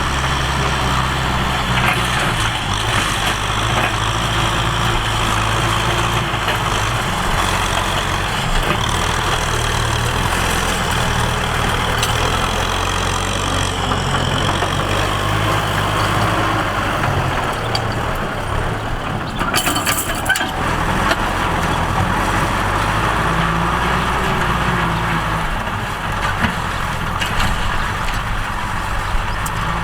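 Tractor engine running steadily, working under load, its pitch shifting up and down a few times, with a brief burst of noise about twenty seconds in.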